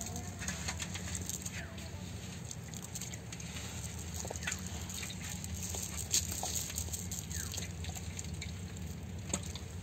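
Scattered light clicks and pats as a cast net is shaken out over bare ground: its chain sinkers clink and small fish drop and flap on the dirt, over a steady low rumble.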